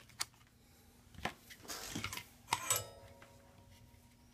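Handling noises of small parts being moved: a few sharp clicks and a short plastic rustle, then near the end a sharper click that rings briefly with a metallic tone.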